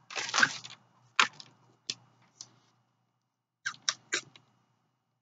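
A short breath, then several small sharp clicks at uneven intervals over the next few seconds.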